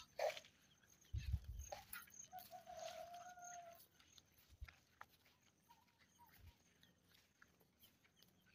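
Faint rural outdoor sound: a few low thumps about a second in, then a single drawn-out steady animal call lasting over a second, typical of a distant farm animal.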